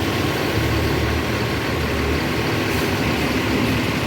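Large bus's engine running close by, a steady low rumble.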